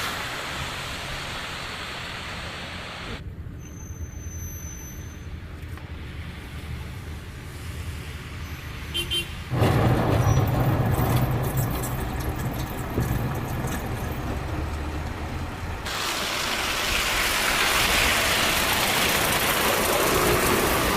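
Outdoor road sound in several abrupt sections: a steady noise haze, a quieter stretch, then a loud low vehicle rumble that starts suddenly about ten seconds in and lasts about six seconds, followed by a steady noise haze again.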